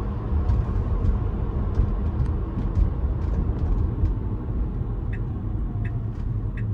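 Steady low tyre and road rumble inside the cabin of a Tesla electric car driving in traffic, with light ticking about twice a second near the end.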